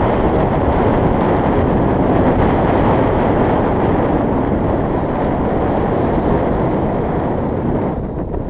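Strong wind buffeting the microphone: a loud, steady rushing roar that eases briefly near the end.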